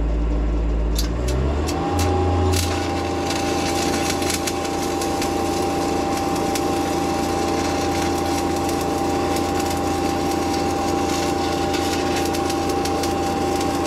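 Stick-welding arc from a 3/32" 7018 rod on carbon steel, struck with a few sharp crackles about a second in, then crackling and sizzling steadily as the uphill open root bead is run. Underneath, a DC engine-driven welding machine hums, its engine note stepping up as the arc takes load, with a steady whine.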